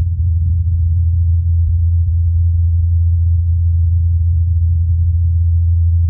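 Ingenuity Mars helicopter's coaxial rotor blades spinning at 2,537 rpm in flight: a steady low hum, picked up through the thin Martian air by the Perseverance rover's microphone.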